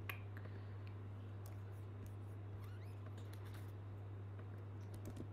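Faint, scattered clicks of a computer mouse and keyboard over a steady low hum.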